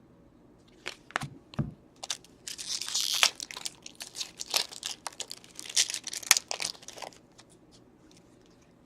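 Foil wrapper of a hockey card pack being torn open and crinkled, with a hissy rip about three seconds in, among a run of sharp clicks and snaps as the cards are handled. It goes quiet for the last second or so.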